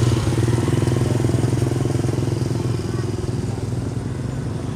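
Motorcycle engines running close by, a steady low engine hum that is loudest in the first second or so and then eases off a little.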